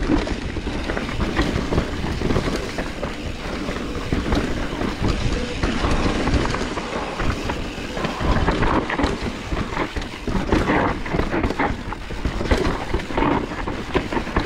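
Mountain bike being ridden down a rough downhill trail: a continuous clatter and rattle of the tyres over the ground and the bike shaking, with many small uneven knocks.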